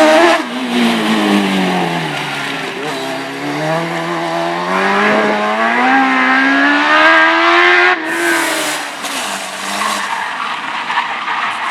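A slalom racing car's engine running hard: the revs fall for the first few seconds, then climb steadily for several seconds as the car accelerates. About eight seconds in the revs drop off sharply with a short noisy hiss, then the engine runs on more quietly.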